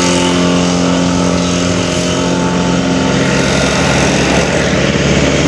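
Pressure washer running with a steady hum while its hose sprays water onto a scooter.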